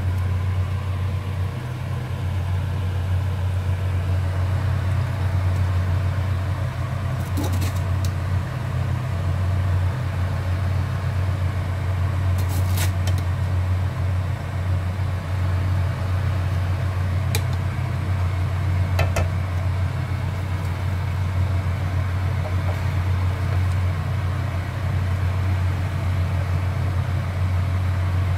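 A steady low mechanical hum, with a few light clicks of a wooden spoon against a metal cooking pot.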